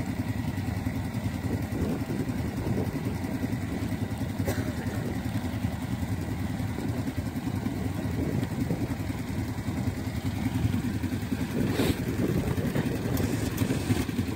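Off-road vehicle engine idling steadily, an even low running with a couple of faint clicks.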